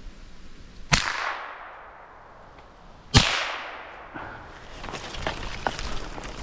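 Two gunshots at a squirrel, about two seconds apart, each echoing away through the woods for about a second. Then scattered rustling footsteps in fallen leaves.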